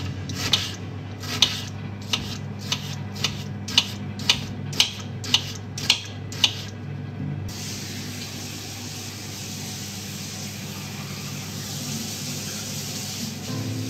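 About a dozen knife strokes chopping an onion on a cutting board, roughly two a second. About halfway through they stop and a kitchen tap runs steadily into the sink.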